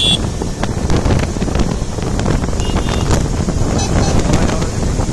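Wind buffeting the microphone at riding speed, over a group of motorcycles running along the road.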